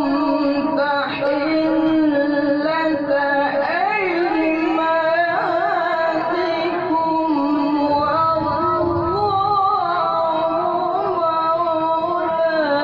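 A Quran reciter chanting a long melismatic phrase in the tartil/tajwid style: one unbroken sustained vocal line that holds, wavers and glides through ornaments in pitch.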